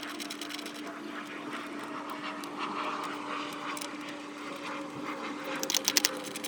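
Ratchet with a 10 mm socket clicking on a ground bolt, a quick run of sharp metallic clicks near the end, over a steady low hum.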